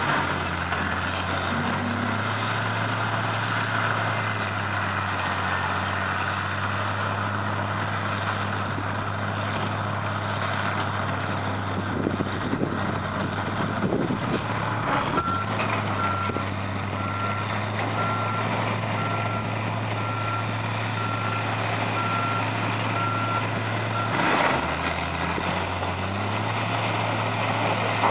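Diesel engines of excavators and a wheel loader running steadily on a demolition site. A backup alarm beeps steadily for several seconds from about halfway through. Broken concrete rubble clatters and crunches a little before the alarm starts and again briefly near the end.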